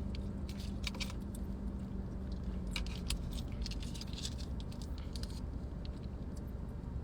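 Close-up eating sounds from burger and fries: scattered small clicks and crackles of chewing and of food and wrappers being handled, over a steady low hum.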